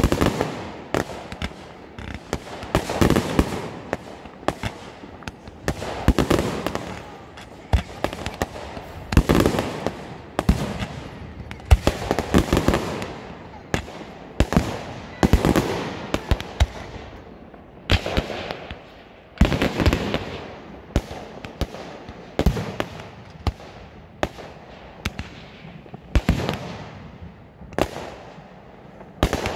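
Aerial firework shells bursting one after another in a display: sharp bangs every second or so, sometimes in quick clusters, each trailing off as it echoes.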